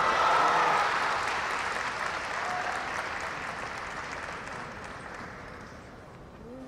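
Audience applauding in a large hall, loud at first and dying away steadily over several seconds.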